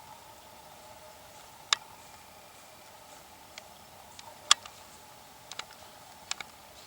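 A scattered series of sharp clicks and taps, about eight in all, irregularly spaced, with the loudest about four and a half seconds in, over a faint steady background hiss.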